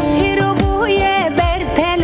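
A Kurdish song playing: a wavering, ornamented melody line over a steady drum beat.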